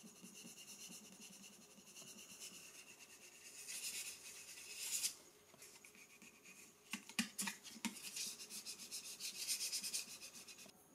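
A plastic card scraped across a screen protector film on a touchscreen, squeegeeing air bubbles out to the edges in faint rubbing strokes, with a few sharper taps about seven seconds in.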